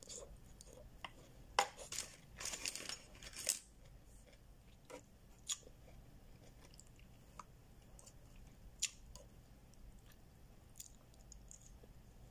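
Close-up chewing and mouth noises of someone eating, with a cluster of louder chewing sounds about two to three and a half seconds in. Scattered light single clicks from a plastic fork handled over a plastic food tray follow.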